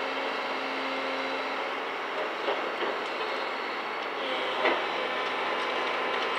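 Hydraulic excavator running steadily while demolishing a brick building, with a few sharp knocks of the bucket and falling brick about two and a half and four and a half seconds in.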